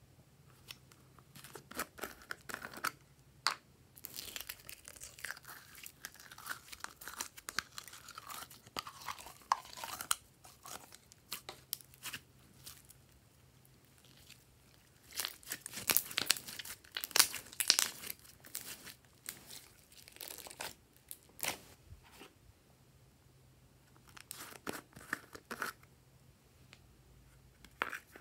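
Glossy slime being handled and stretched by hand: bursts of sticky clicking and crackling. A longer tearing hiss runs from about 4 to 10 seconds in, and the thickest crackling comes in the middle.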